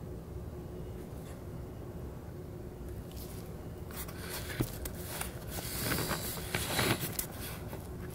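Rustling and scraping handling noises, irregular and strongest between about three and seven seconds in, with a single small click near the middle, over a low steady room hum.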